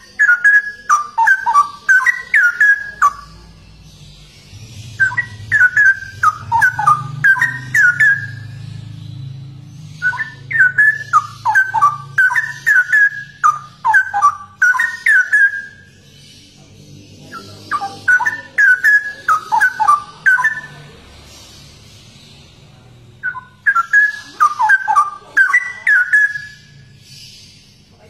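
Straw-headed bulbul (cucak rowo) singing in five loud bursts of quick whistled notes that jump up and down in pitch. Each burst lasts about three to five seconds, with short pauses between.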